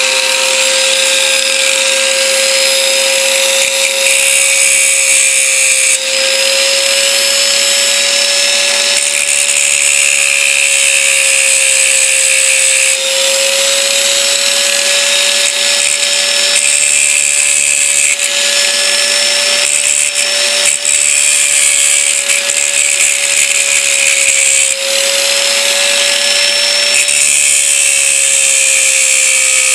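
Small variable-speed angle grinder set to speed 3, running with a steady whine. Its wheel grinds metal in passes a few seconds long, dressing the worn, slipping ratchet teeth of a Druzhba-4 chainsaw starter.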